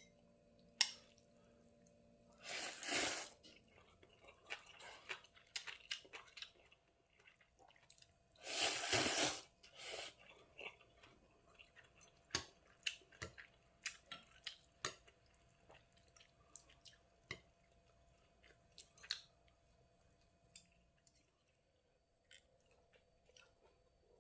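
Someone eating a bowl of fish cake noodle soup: two long slurps of thin wheat noodles, about a second each, with soft chewing and small clicks and taps between them.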